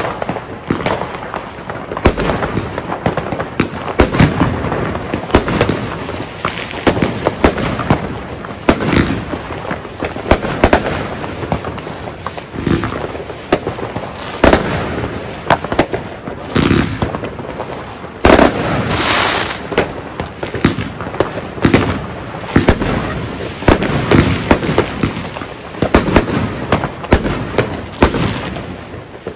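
Iskra Neon King firework going off: a dense run of sharp bangs and reports, several a second. About two-thirds of the way through, a louder bang followed by a second or so of crackling.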